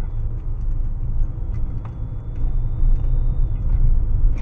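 Car road and engine noise picked up inside the cabin by a dashcam microphone: a steady low rumble that grows slightly louder as the car pulls away and gathers speed.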